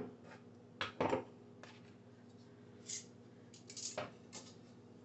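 Metal kitchen tongs clicking and a nonstick frying pan clattering on a gas stove: a few short sharp clicks, clustered about a second in and again near four seconds, over a faint steady hum.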